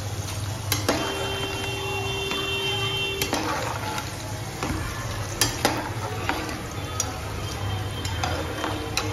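Batter-coated okra deep-frying in hot oil, the oil sizzling steadily. A metal slotted spatula and wire-mesh skimmer clink and scrape against the pan several times as the crisp okra is lifted out.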